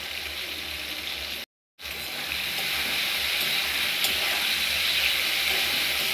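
Cut okra pieces sizzling as they fry in hot oil in a steel kadai, a steady hiss. The sound drops out briefly about a second and a half in, then returns a little louder.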